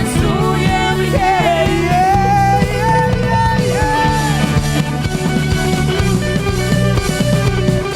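Live worship band playing an upbeat rock song with electric guitar, bass and drums, with a melodic lead line.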